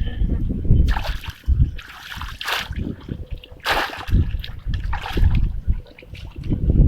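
Water splashing and sloshing in a series of separate splashes, as hands work through shallow water to catch fish.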